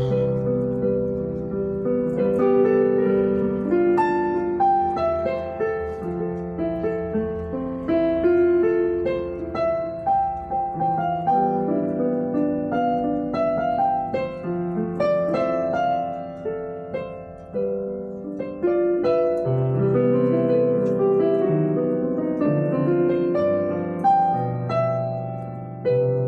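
Background music: piano playing a flowing melody over sustained chords.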